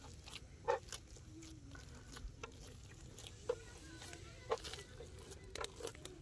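Faint, irregular squelches and slaps of a hand kneading and pressing a soft minced-chicken and breadcrumb mixture on an oiled wooden board, a handful of sharper slaps spaced about a second apart.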